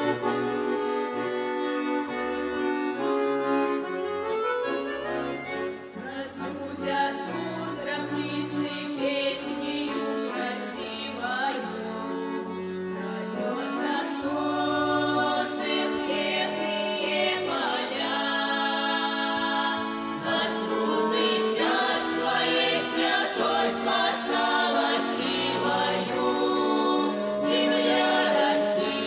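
An accordion plays a Russian folk-style song, and a children's vocal ensemble joins in singing about six seconds in, carrying on with the accordion.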